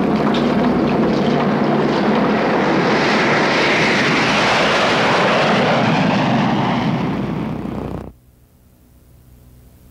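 Loud, steady engine noise that brightens in the middle, fades a little, then cuts off abruptly about eight seconds in, leaving faint hiss and hum.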